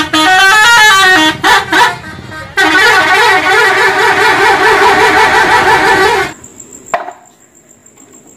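Indonesian tour bus's multi-tone musical 'telolet' air horn playing a warbling up-and-down melody, broken by a few short toots. It cuts off abruptly about six seconds in.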